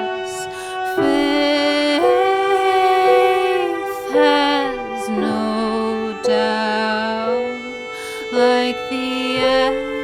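Slow, instrumental-sounding music from the song's outro: long held notes that slide and bend between pitches over steady sustained tones.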